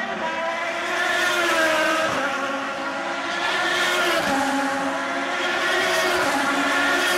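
IndyCar race cars' Honda V8 engines running past on a street circuit, several engine notes overlapping and rising and falling in pitch, swelling about a second in and again midway through.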